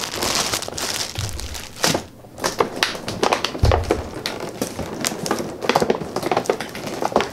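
A clear plastic bag crinkling as it is handled, with clicks and taps of hard plastic toy parts and packaging. Two dull thumps, one about a second in and a louder one near four seconds.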